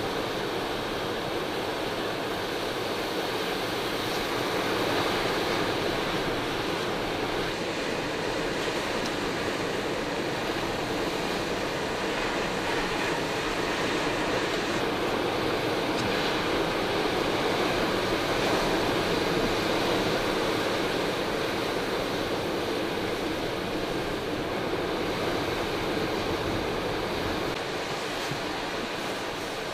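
Steady, unbroken rushing noise of blizzard wind and surf, swelling slightly a few times.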